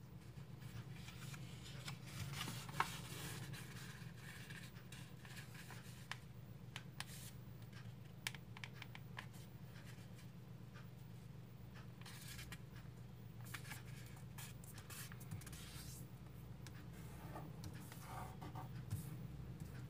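A sheet of origami paper being handled and folded on a wooden table: faint rustling and scraping, with scattered short ticks as the folds are pressed and creased, and one sharper click about three seconds in. A steady low hum runs underneath.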